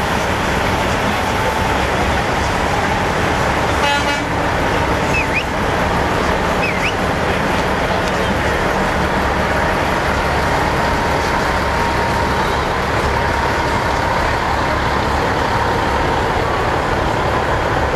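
Semi-truck air horns sounding over a steady hum of idling diesel trucks and crowd voices, with a short horn blast about four seconds in.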